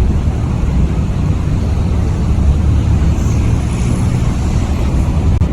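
Steady low rumble of city street traffic, with wind buffeting the microphone.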